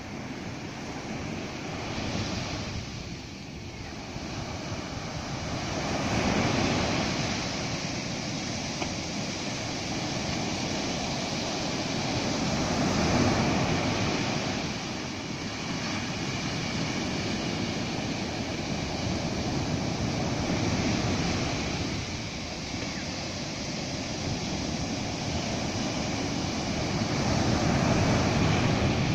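Ocean surf breaking on a sandy beach, a steady wash of noise that swells with each breaking wave and falls back, about every seven seconds.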